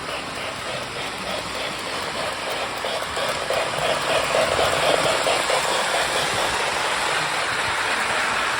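Toy steam locomotive running on its track, its electronic sound-of-steam unit giving a rapid, rhythmic hissing chuff over the running noise. The chuffing grows louder about three and a half seconds in.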